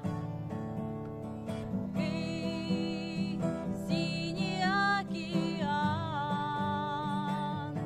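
Strummed acoustic guitar accompanying a voice singing long held notes with vibrato.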